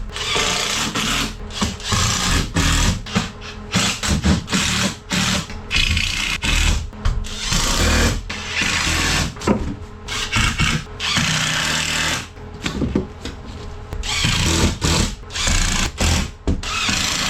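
Power drill running in many short, stop-start bursts.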